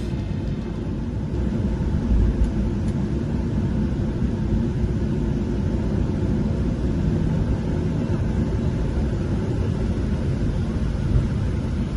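Steady low rumble inside a passenger airliner's cabin.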